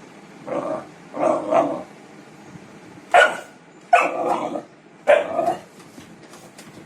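Pit bull puppy barking five times. The first two barks are softer, and the last three are louder with sudden starts.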